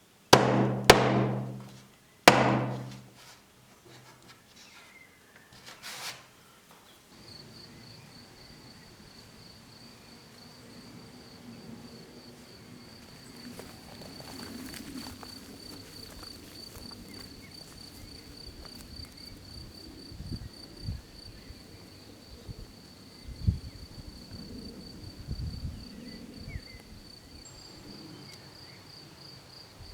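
Three loud hits in the first few seconds, each ringing out over a low hum, then a cricket's steady, rapidly pulsing high-pitched trill, with a few soft thumps.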